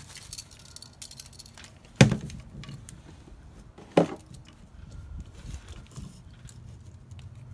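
Handling noise from an electrical outlet and its stripped wires being worked by hand against a wooden cabinet panel: small clicks and rustles, with two sharp knocks about two and four seconds in.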